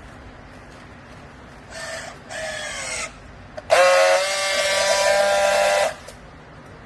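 Two short pitched tones that dip slightly in pitch, then a loud, steady horn-like tone lasting about two seconds that cuts off sharply.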